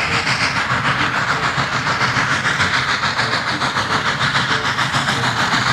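Steam-train chugging sound: a steady hissing beat of about four to five puffs a second.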